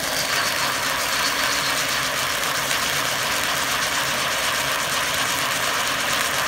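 Tree Fort ground fountain firework burning, a steady hiss as it sprays sparks across the pavement.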